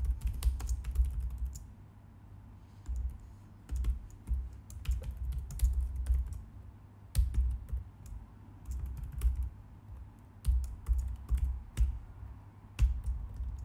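Typing on a computer keyboard: quick runs of key clicks, each with a light thud, broken by short pauses, the longest about two seconds in.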